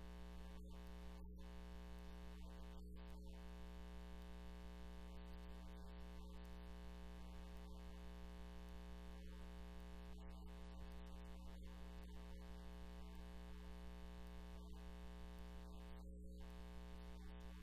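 Steady electrical hum and buzz, with many overtones, unchanging throughout.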